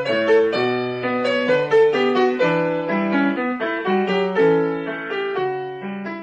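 Keyboard music with a piano sound, a tune of separate notes over chords, fading out near the end.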